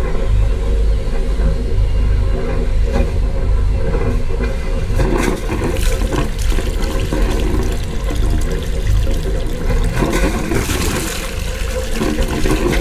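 Yanmar 4JH5E four-cylinder marine diesel running with a steady low rumble at the stern exhaust outlet. In the second half, cooling water starts to spurt and splash out of the wet exhaust into the water in surges, the sign that the raw-water cooling circuit has primed.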